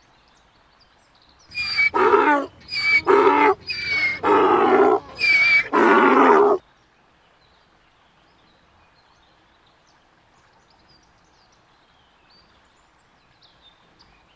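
A donkey braying: a run of about five alternating hee-haw calls, some with a high wheezing tone, that stops abruptly near the middle.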